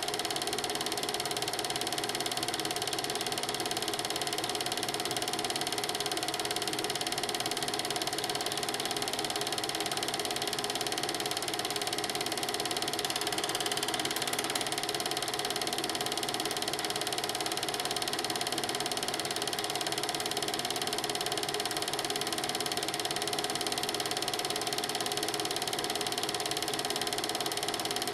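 Film projector running, its film transport making a steady, even mechanical clatter with a constant hum.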